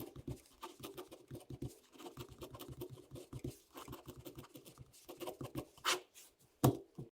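Elephant sounds: a fast, rough, crackly pulsing with low rumbling, and a sharp louder burst near the end.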